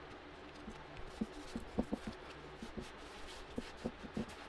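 Light, irregular tapping and rubbing from hands pressing and smoothing a masking-tape stencil onto a sign blank, with a cluster of small knocks about a second in and more near the end.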